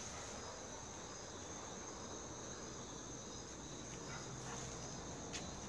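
A steady chorus of crickets: a continuous high trill that does not change.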